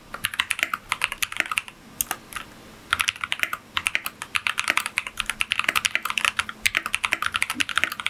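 A heavily modded RK61 60% mechanical keyboard being typed on quickly: lubed KTT Kang White V3 linear switches in a foam-filled, weighted case with replaced stabilizers. It gives a rapid run of keystrokes with a brief pause a little after two seconds in.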